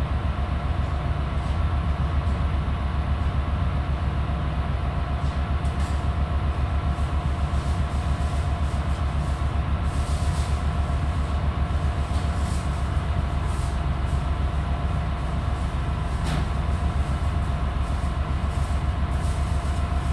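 Heavy cargo-handling machinery running steadily: a low engine drone with a fast, even pulsing beat and steady whining tones over it, with a single sharp clank about three-quarters of the way through.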